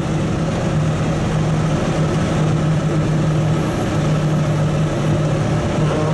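Engine of a heavily laden GAZ Sadko truck running steadily on the move, heard inside the cab as a steady low drone that holds its pitch, over tyre and road noise.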